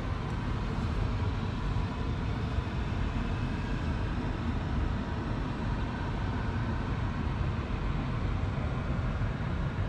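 Steady road rumble and wind noise of the electric 2023 Volkswagen ID.Buzz on the move, even in level throughout.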